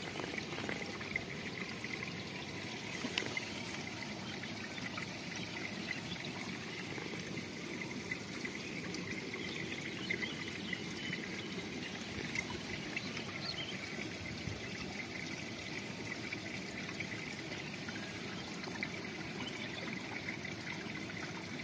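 Water trickling and running steadily over stones in a small stream.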